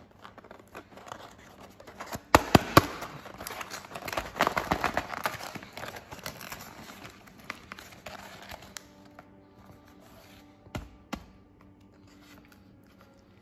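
A paper grill slip being torn off and a cardboard McDonald's burger box being opened by hand: crinkling and tearing paper with a few sharp snaps of the cardboard, loudest about two to three seconds in and fading after about six seconds, with one more snap near the end.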